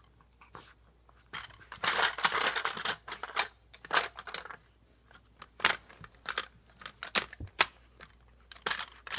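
A dog nosing and pushing at a plastic puzzle toy: plastic clicking, scraping and rattling, dense from about one and a half seconds in for a few seconds, then single sharp clicks.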